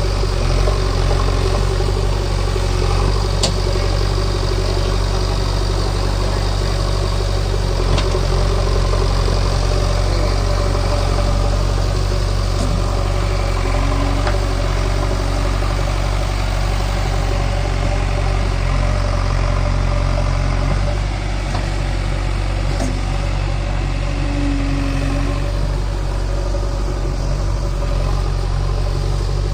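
JCB 3DX backhoe loader's diesel engine running steadily at low revs, settling slightly lower about two-thirds of the way through, with a few faint clicks.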